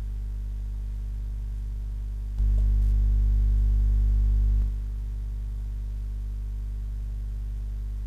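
Mains hum picked up through an unshielded microphone cable on an ungrounded PC's Sound Blaster Audigy 4 mic input with +20 dB boost: a steady low hum that jumps much louder about two and a half seconds in, while a hand touches the metal PC case, and drops back about two seconds later. The rise is the noise of the ungrounded case being touched.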